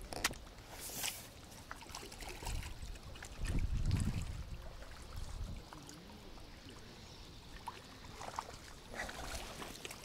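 Shallow water splashing and sloshing around a landing net as a hooked crucian carp is brought to the surface and netted, with a louder rush of water about four seconds in and small scattered clicks and drips.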